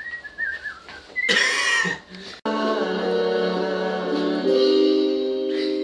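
Music from a homemade song: a short loud noisy burst, then, after an abrupt cut, a long held sung chord of several pitches that shifts once near the end.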